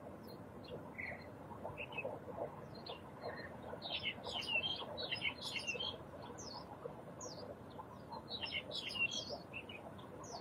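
Small birds chirping in short, high calls over a faint open-air background, busiest about four seconds in and again near the end.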